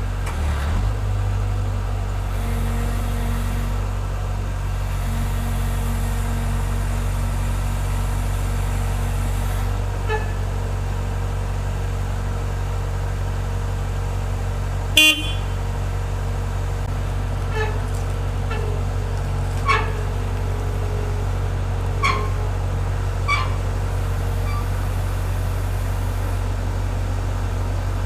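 JCB 135 skid steer's diesel engine running steadily with a low drone. About halfway there is one brief, loud, sharp sound, followed later by several lighter metallic clanks that ring briefly.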